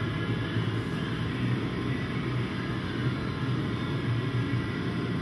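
Steady mechanical drone with a low hum, unchanging throughout and with no distinct knocks or clicks.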